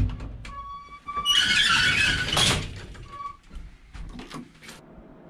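Old lift's metal doors being opened and closed: a high squeal, then a loud scraping rush for about a second as the doors move, and a short squeak after it.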